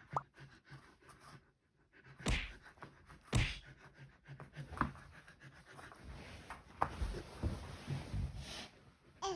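A Samoyed panting softly, with several thumps and rustles of movement. The two loudest thumps come a little over two and three seconds in.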